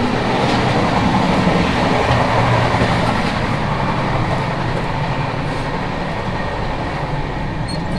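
Loud, steady running noise of a moving passenger train, heard from inside the vestibule between coaches.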